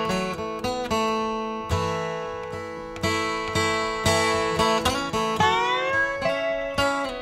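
Background music: acoustic guitar picked and strummed, with notes sliding up in pitch about three-quarters of the way through.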